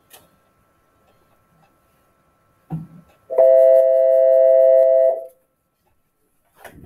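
A steady tone with two pitches sounding together, held for about two seconds and stopping cleanly, after a brief low thump.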